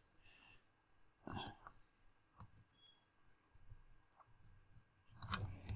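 A few computer mouse clicks against near silence: one a little over a second in, one about two and a half seconds in, and a short cluster near the end.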